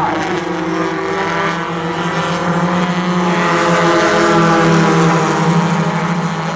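A pack of import race cars racing around a paved oval, engines at full throttle. Their engine notes bend in pitch and swell loudest as two cars pass close about four seconds in, then ease off.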